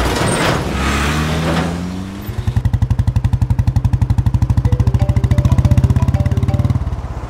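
A lorry rushes past. Then a motorcycle engine runs with a steady, rapid pulse as the bike rides along the road, dropping out briefly near the end.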